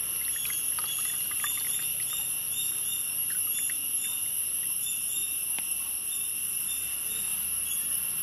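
Soaked tamarind being squeezed by hand over a bowl of tamarind water, with faint drips and small splashes in the first few seconds. A steady high-pitched drone and small repeated chirps of insects carry on underneath.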